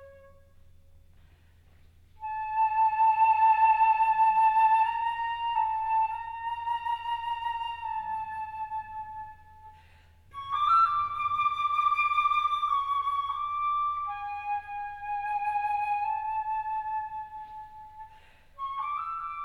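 Solo flute playing a slow melody of long, held notes. It comes in about two seconds in, takes a short breath about ten seconds in, and starts another phrase near the end.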